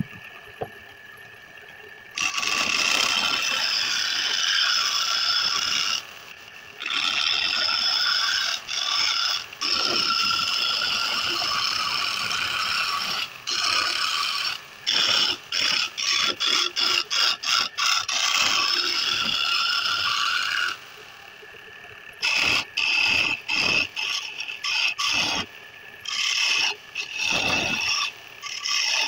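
Spinning wooden spindle on a wood lathe being cut by a hand-held turning tool: loud scraping in long passes, broken in the second half into many short, repeated touches. In the pauses the lathe runs on with a faint steady hum.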